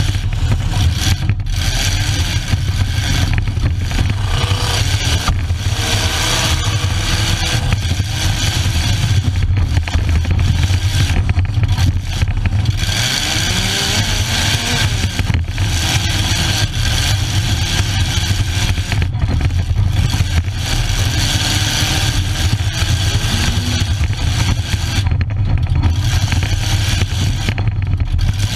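Demolition derby car's engine running loud and continuously as the car is driven, heard from inside the stripped-out cabin, with brief dips in the noise now and then.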